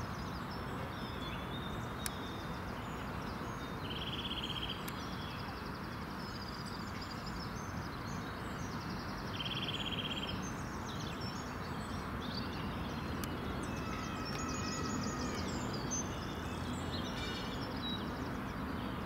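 Steady outdoor background noise with small birds calling: two short buzzy, pulsed calls about four and nine seconds in, and fainter chirps scattered through.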